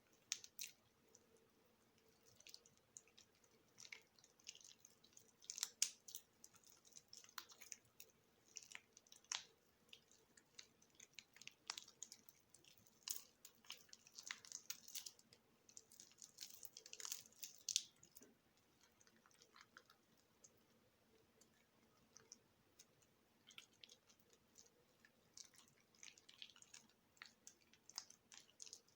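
Mushy, water-soaked bar of soap being worked: quiet, irregular clusters of small wet crackles and squishes. They are busiest in the middle, thin out for a few seconds, then pick up again near the end.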